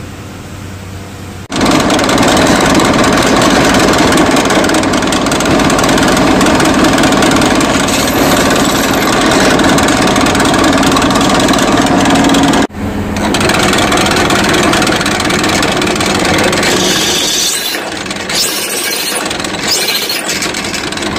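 Drill press running, with a small twist bit boring a first hole through a steel flat bar. The machine starts about a second and a half in, stops for a moment just past halfway, then runs and drills on.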